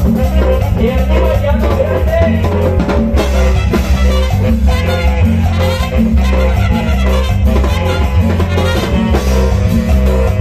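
Live band playing Latin dance music loudly through a PA: drum kit and percussion, saxophone and brass over a steady, repeating bass line.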